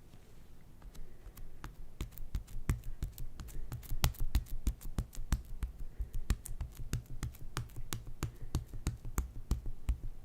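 Slime being squeezed and kneaded by hand, giving rapid sharp clicking pops, several a second, from about a second in and thickest in the middle.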